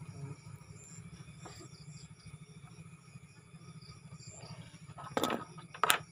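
Faint night insects chirring steadily over a low hum, with two sharp knocks about five seconds in.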